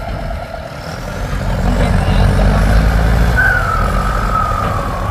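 Diesel engines of a turbocharged 7610 farm tractor bogged in swamp mud and a CAT 313D2 excavator working right behind it, running hard under load and growing louder about a second and a half in. Near the end a high whine slides slowly down in pitch.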